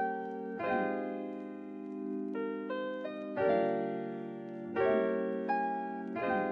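Slow background piano music: sustained chords with a few higher single notes between them.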